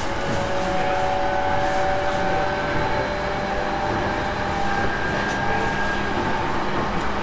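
Interior running noise of a JR East E233-series electric train's motor car between stations: a steady rumble of wheels on rail, with the faint whine of the traction motors drifting slowly in pitch. The car's air conditioning is running.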